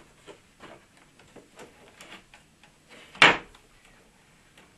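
Layers of a dismantled LED ceiling panel being handled in its aluminium frame: faint scattered clicks and rustles, with one sharp knock a little over three seconds in.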